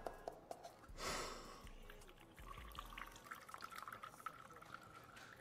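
Faint stream of urine running into a small sample cup, a short hiss about a second in and then a thin trickling tone from about halfway, rising slowly in pitch as the cup fills.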